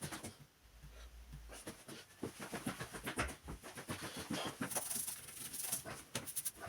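Irregular small clicks, taps and rustles of hands handling and working on laptop parts, with a few brief hissing scrapes about five seconds in.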